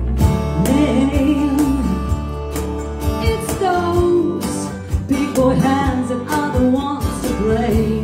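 Live band music: electric bass, keyboard and drums playing a song together, with a sliding melody line on top and steady drum strokes.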